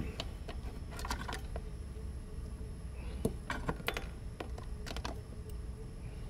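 Scattered light clicks and taps, small hard objects handled at a workbench, in a few clusters over a steady faint hum.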